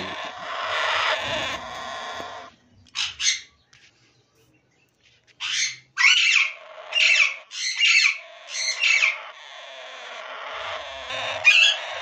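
Alexandrine parakeets in a nest box giving harsh, raspy squawks. A long grating call opens, and after a brief quiet comes a string of short falling calls about a second apart. It ends on a steadier rasp.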